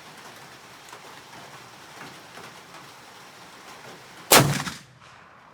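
Light rain falling steadily, then one loud shot from a CVA Wolf muzzleloader about four seconds in, with a short ringing tail.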